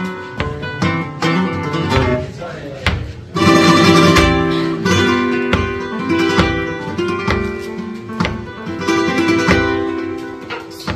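Flamenco guitar playing a caña: plucked melodic runs broken by sharp strummed chords, with a loud stretch of rapid strumming about three and a half seconds in.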